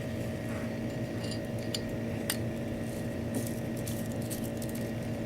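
Small metallic clicks and clinks from a Glock sight tool working the front sight screw into a Glock 26's front sight, a few scattered at first and a quicker run from about three and a half seconds in, over a steady low hum.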